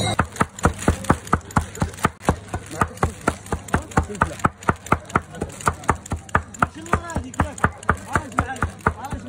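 Knife chopping minced meat (kefta) with onions on foil, a quick steady run of sharp strikes about three to four a second.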